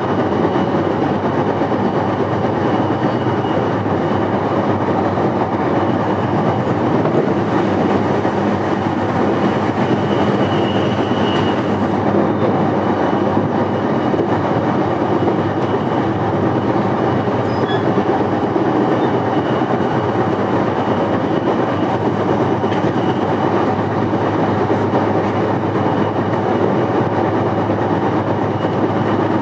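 Running sound heard inside a motor car of a JR East E233 series electric train: steady wheel and rail noise, even in level throughout.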